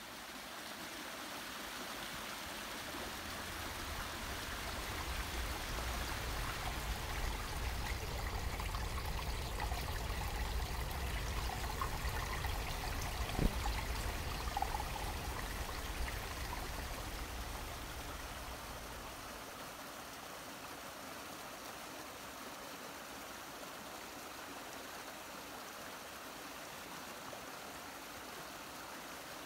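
Swollen brook rushing and pouring through a debris dam of branches under a fallen log: a steady rush of water. A low rumble runs through the first two-thirds, and a single brief knock comes about halfway through.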